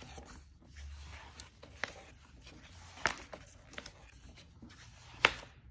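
Pages of a picture book being turned and handled: a few short papery swishes and taps, the sharpest a little past five seconds in.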